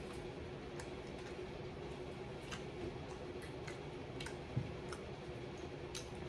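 Eating sounds from chewing fried chicken: scattered faint, sharp clicks over a steady low hum, with one soft thump a little past halfway.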